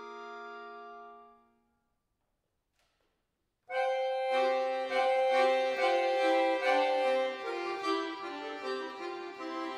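Cooperfisa concert accordion playing: a held chord dies away in the first second and a half, then after about two seconds of silence a loud new phrase comes in, one long held note under quick moving notes.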